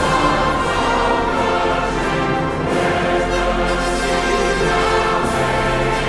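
Orchestral music with brass, sustained chords changing every second or so.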